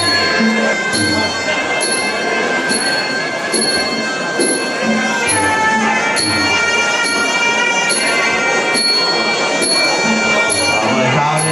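Traditional Muay Thai fight music (sarama): a nasal pi oboe holding a wavering tune over klong khaek drum beats, with a ching cymbal striking a regular beat a little more than once a second.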